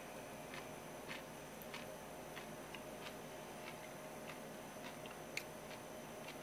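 A mechanical clock ticking steadily, about one light tick every 0.6 seconds, over a faint steady hum. A sharper click comes about five seconds in.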